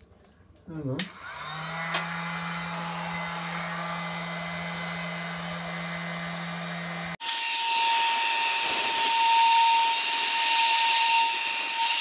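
Handheld electric heat gun running, a steady whir of its fan motor with a low hum, blowing hot air onto a rubber motorcycle handgrip. About seven seconds in it turns suddenly louder, a rush of air with a steady whistle.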